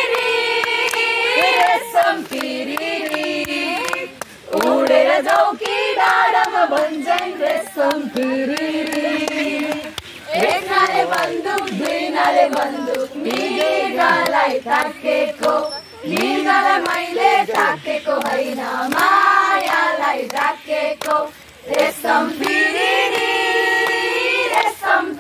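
A group of young people, mostly women, singing a song together, with hand claps keeping time.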